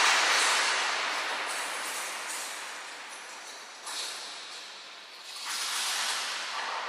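Distorted, filtered wind rush and engine noise from a BMW R1150RT motorcycle ridden at speed. It is a hissing rush with no deep bass, fading over the first few seconds, with a sudden jump about four seconds in, and swelling again after about five and a half seconds.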